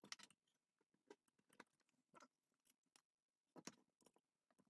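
Near silence, broken by faint, irregular clicks and scrapes of a manual gear shifter lever and its rubber boot and bushing parts being handled, the strongest right at the start and a little past halfway.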